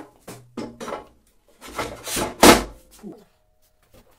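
Cast drill press head (JIB DP15VL) being fitted onto its steel column: metal knocks and scraping, then a loud clunk about two and a half seconds in, followed by a brief faint ring.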